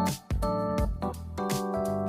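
Background music: keyboard chords over a steady drum beat.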